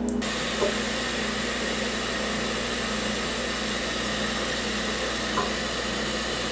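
A steady hiss with a faint low hum. It starts abruptly just after the beginning and cuts off abruptly at the end.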